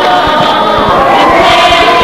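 A crowd of many high voices shouting and cheering all at once, over a quick run of low thumps.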